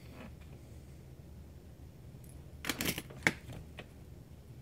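Small hand tools being handled, likely while he reaches for a smaller screwdriver: a short clatter of light clicks a little under three seconds in, then one sharp click.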